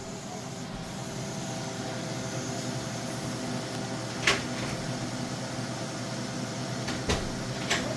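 Steady mechanical hum of an appliance motor or fan running, with three short sharp clicks: one about four seconds in and two near the end.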